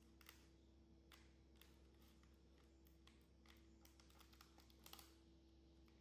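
Faint, irregular light clicks and taps of hands handling a durian on a woven tray, loudest in a small cluster about five seconds in, over a steady faint hum.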